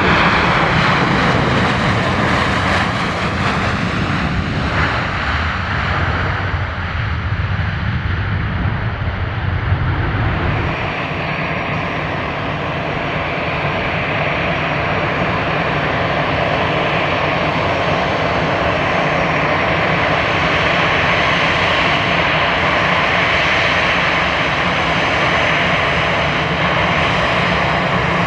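Jet engines of a Boeing 737-800 rolling along the runway, a loud rumble, then from about ten seconds in the steady whine of an Airbus A320-200's twin jet engines at taxi power.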